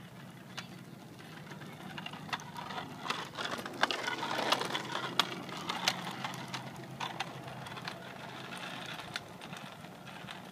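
Child's bicycle with training wheels rolling over a concrete sidewalk: irregular clicks and rattles, loudest for a few seconds in the middle as it passes close by, then fading as it rides away.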